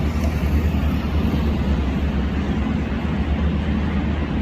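Steady low rumble with an even hiss of outdoor background noise.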